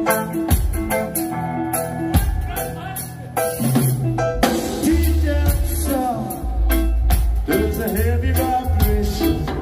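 Live reggae-ska band playing through a PA: drum kit, a heavy bass line and electric guitar in a steady groove.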